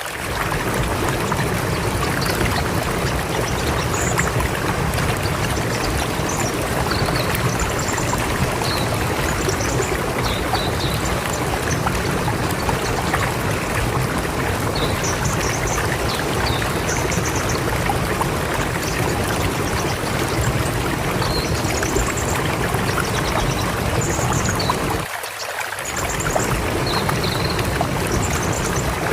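River water flowing steadily: a dense, even rushing noise, with faint short high chirps scattered through it. About 25 seconds in, the low rumble drops out briefly and then returns.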